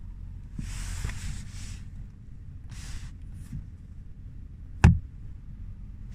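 Handling rustle of hands on the leather trim of a Mercedes-Benz W221 door armrest. Near the end comes a single sharp thump as the armrest's leather-covered storage compartment lid is shut.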